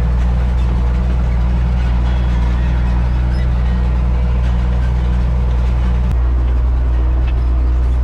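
Tractor engine running steadily at working speed while pulling a hay rake through the field. One of the drone's higher notes drops away about six seconds in.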